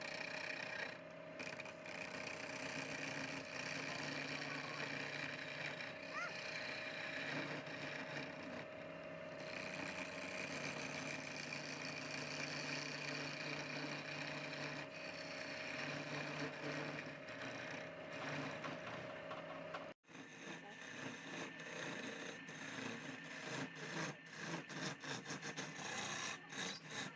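Wood lathe running with a steady motor hum while a turning tool scrapes and cuts the spinning wood. After a sudden break about two-thirds of the way through, the cutting comes in quick, rough, uneven pulses.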